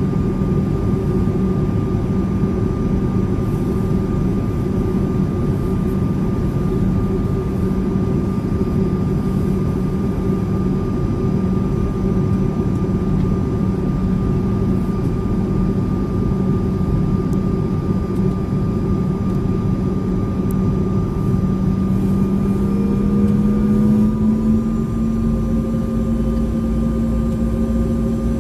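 Steady engine and airflow roar inside a jet airliner's cabin on descent with the flaps extended, carrying a steady engine hum. Near the end the engine note rises slightly in pitch and gets a little louder.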